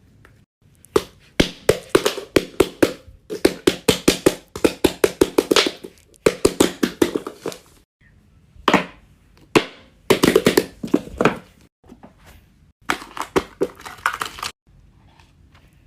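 Hands tapping and clicking on small fidget toys, in quick runs of several taps a second broken by short pauses.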